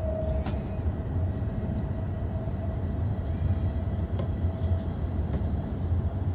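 Cabin noise inside a moving E5 series Shinkansen: a steady low rumble with a thin steady hum above it and a few faint clicks.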